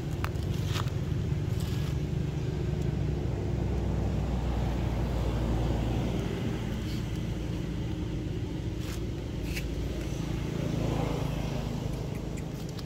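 A motor vehicle's engine running steadily, swelling about halfway through and easing off near the end, with a few short clicks.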